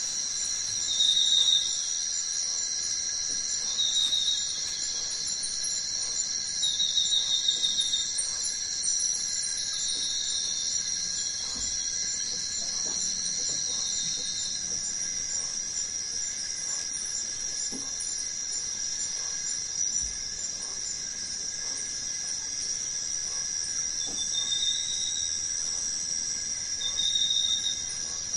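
Tropical rainforest insect chorus: several insects hold steady high-pitched buzzing notes, and a pulsed chirping call comes back every few seconds. One of the steady notes stops about halfway through, and the chirping pauses in the middle stretch before returning near the end.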